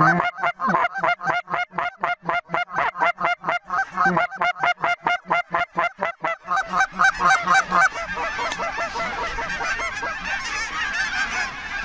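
Snow geese calling: rapid, evenly spaced honks about four a second for the first several seconds, then from about six seconds in a dense, overlapping chorus of many snow geese as the flock comes in low over the decoys.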